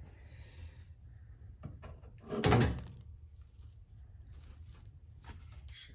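Faint handling clicks, with one loud short thunk about two and a half seconds in.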